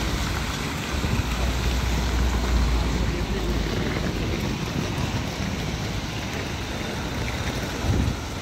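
Wind rumbling on the microphone, strongest for a few seconds near the start, over a steady wash of outdoor city noise.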